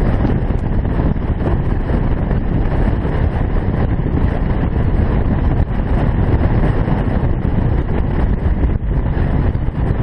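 Heavy wind noise buffeting the microphone of a camera mounted on a Yamaha V Star 650 cruiser motorcycle at road speed, with the bike's V-twin engine running underneath. Steady and loud throughout.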